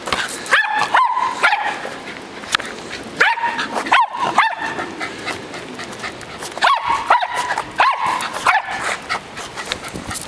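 Small terrier barking in short, high-pitched yapping barks, in three bursts of several barks each, as it plays at a basketball.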